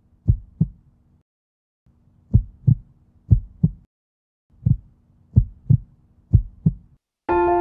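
Heartbeat sound effect: low double thumps, lub-dub, about one pair a second, in short runs broken by brief silences. Music with sustained tones comes in near the end.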